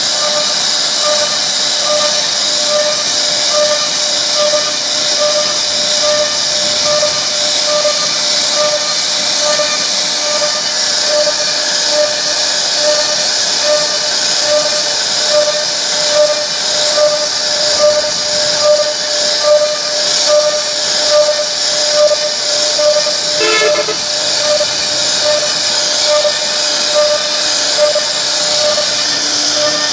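CNC router spindle running at high speed as the bit carves wood, a steady high whine and hiss with a tone that pulses at an even rhythm as the cutter works along the pattern.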